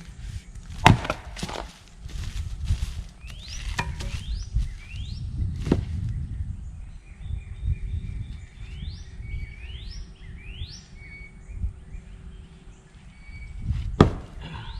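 Axe blows splitting firewood: a sharp crack about a second in, smaller knocks over the next few seconds, and another loud strike near the end. A bird calls repeatedly with short rising notes in between.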